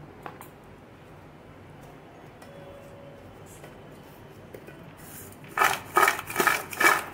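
Crisp fried nimki tossed in an aluminium bowl to coat them in spice mix. From about five and a half seconds in, the pieces rattle and crunch against the metal in quick shakes, about three a second.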